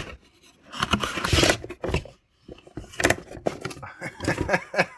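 Packaging and a product being handled while unboxing: irregular scraping, rustling and clicking, with short pauses.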